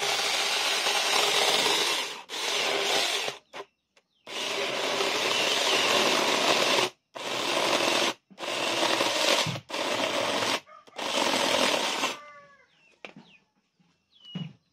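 21-volt cordless mini chainsaw cutting into a log. The motor runs in bursts of one to three seconds with brief stops between them as the trigger is released and pulled again, and it stops about twelve seconds in.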